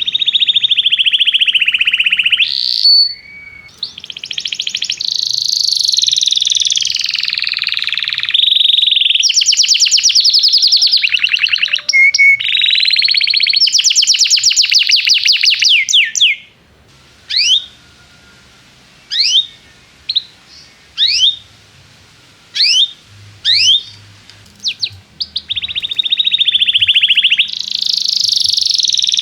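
Domestic canary singing: long, fast trilled rolls, then a string of separate sharp rising chirps about a second apart, then trilling again near the end.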